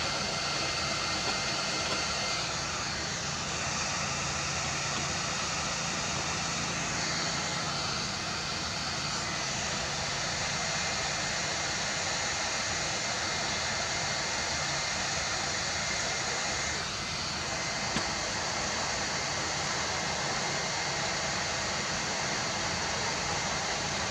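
858D hot air rework station blowing air from its nozzle: a steady whooshing fan hiss with a faint high whine, its tone shifting slightly a few times as the nozzle is moved. One small click about two-thirds of the way through.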